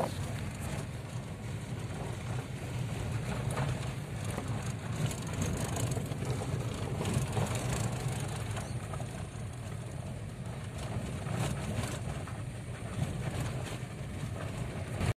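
Hyundai Grand i10 hatchback driving slowly over a badly broken dirt road, heard from inside the cabin. Engine and tyres make a steady low rumble, with scattered knocks and rattles as the car goes over ruts and stones.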